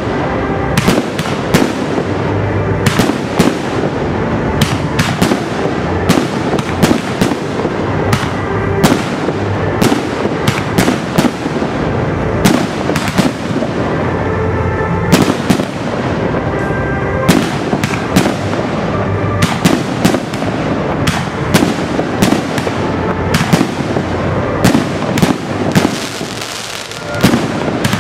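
Fireworks display: shells bursting in quick, irregular succession, sharp bangs several times a second over a dense continuous din, thinning briefly just before the end.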